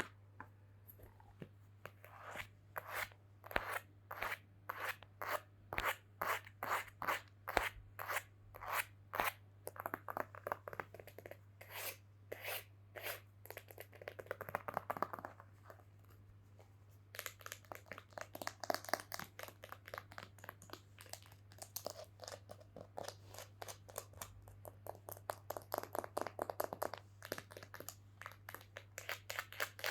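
ASMR knocking: light, crisp taps on an object, evenly spaced at about two a second at first, then after a short pause quicker, denser tapping. A faint steady low hum runs underneath.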